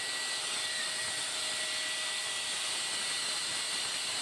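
Steady, even hiss with a thin high tone running through it.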